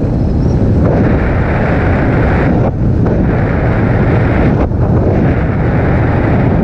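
Motorcycle riding at speed, heard as heavy wind rumble on the on-board camera's microphone over the engine. The rumble briefly dips twice, near the third and the fifth second.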